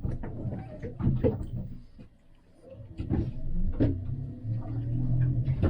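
A few light knocks and clatters, as of things being handled and set down. A low steady hum comes in during the second half.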